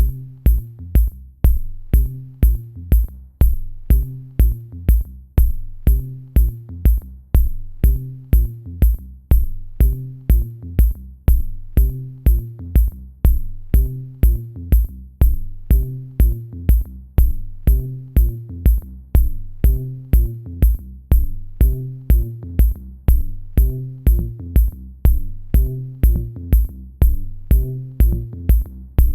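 Electronic music with a steady drum-machine beat, about two kicks a second, over a repeating bass line.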